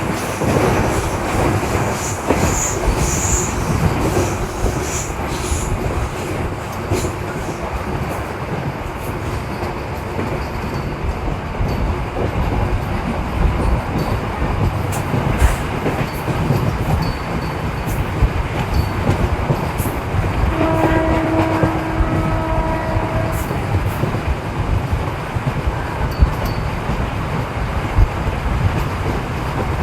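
Indian Railways MEMU electric train running along the track, a steady rumble of wheels on rails. About two-thirds of the way through a train horn sounds for about three seconds.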